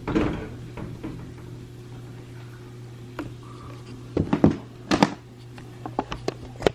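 Handling noise from a handheld camera being picked up and held at arm's length: a cluster of short knocks and rubs in the second half, over a low steady hum.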